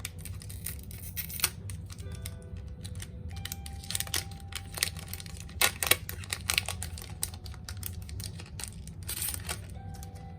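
Foil trading-card booster pack being torn open and its wrapper crinkled, in irregular sharp crackles that are loudest a little past the middle. Soft background music runs underneath.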